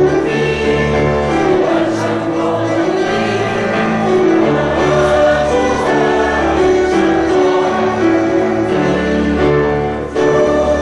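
Mixed choir of men's and women's voices singing a Christmas medley in harmony, with low sustained keyboard accompaniment. The sound dips briefly near the end.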